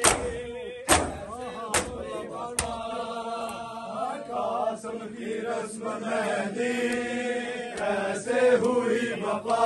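A crowd of men beating their chests in unison (matam): four loud slaps about a second apart, then the slapping stops and the men's voices chant together.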